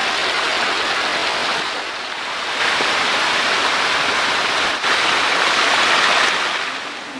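Dense splashing and churning of water as a crowded tank of young hybrid magur catfish thrash at the surface to feed: a steady rain-like hiss that grows louder about two and a half seconds in and eases near the end.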